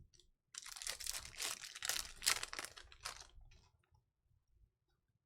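Foil trading-card pack wrapper crinkling as it is torn open and crumpled, for about three seconds.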